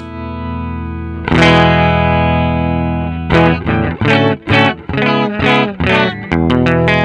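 Electric guitar played through a Nux MG-400 multi-effects unit with its amp model and cabinet IR switched on. A chord rings out, a new chord is strummed about a second in and left to ring, then a run of short, choppy chords follows from about three seconds in.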